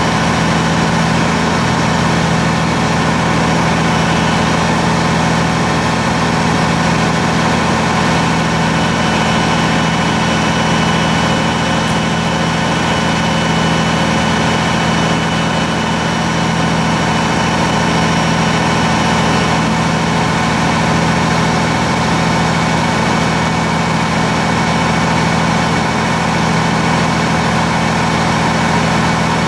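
American LaFrance tiller fire truck's diesel engine running steadily to power the aerial ladder as it is lowered, with a faint steady whine on top.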